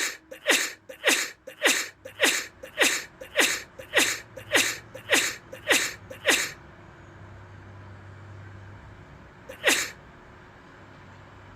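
A person sneezing over and over in a rapid fit, about a dozen short sneezes at roughly two a second. Each has a quick falling voiced catch. After a pause of about three seconds comes one last sneeze.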